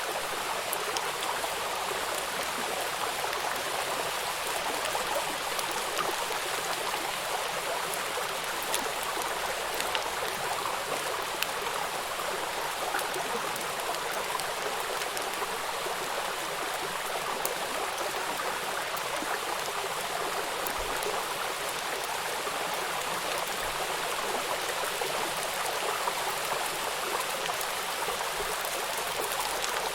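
Stream of running water flowing steadily, an even rushing noise with faint scattered droplet ticks.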